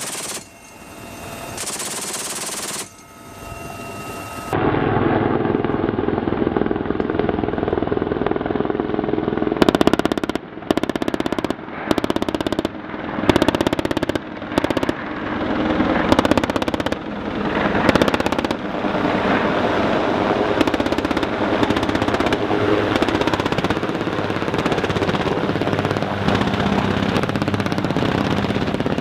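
Helicopter-mounted gun firing rapid bursts, several bursts about a third of the way in and up to the middle, over the steady noise of the helicopter's rotor and engines.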